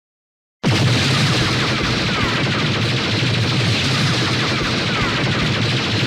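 Evangelion pallet rifle sound effect: a long, continuous automatic burst of rapid gunfire that starts abruptly about half a second in.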